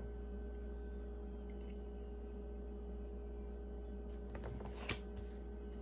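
Quiet room tone with a steady low electrical hum, and a few faint clicks between four and five seconds in.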